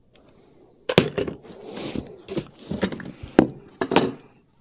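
Knocks, clicks and scrapes of cardboard ammunition boxes and gear being handled on a wooden shooting bench. They start about a second in, with several sharp knocks and rubbing between them.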